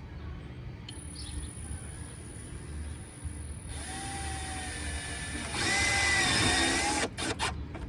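Power drill driving a self-tapping screw into thin metal. The motor starts about four seconds in and runs louder for over a second as it drives the screw, then stops shortly before the end, followed by a few clicks.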